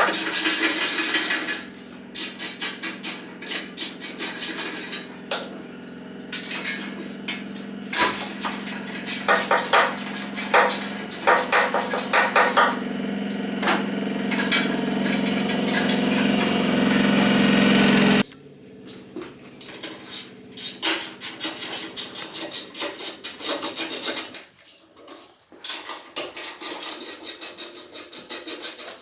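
Metal tools and parts clinking and rattling during hands-on work on an ATV exhaust, with runs of quick clicks. Under it is a steady hum that cuts off suddenly about two-thirds of the way through.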